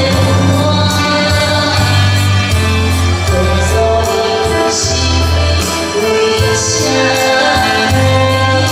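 A woman singing into a microphone, backed by electronic keyboard and saxophone, with a steady beat and a bass line.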